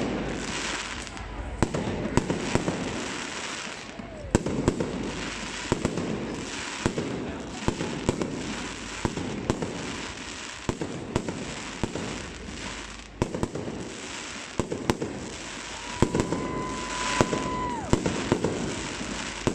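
Aerial fireworks going off in a rapid, irregular run of bangs and crackles over crowd chatter, with a steady whistle-like tone held for about a second and a half near the end.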